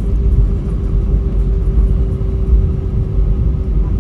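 Airbus A320 airliner running: a steady low rumble with a steady mid-pitched hum over it.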